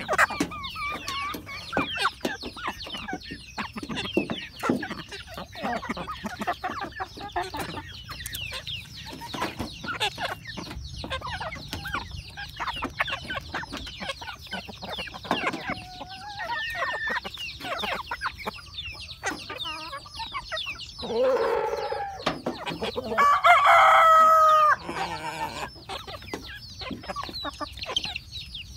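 Chickens clucking softly while pecking at a mango held out by hand, with many quick, sharp beak taps. About three-quarters of the way through, a rooster crows, the loudest sound in the stretch.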